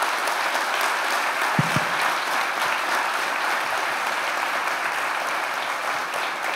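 Audience applauding steadily, a dense clatter of many hands, with two brief low thumps about one and a half seconds in.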